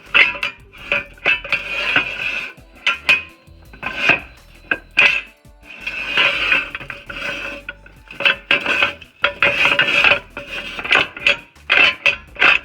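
Metal tools and parts clanking and scraping together in irregular bursts of sharp knocks with a metallic ring.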